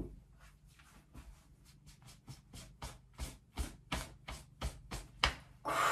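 Scissors snipping through wet hair in a quick, uneven run of short snips, about three or four a second, getting louder. A loud breathy sigh near the end.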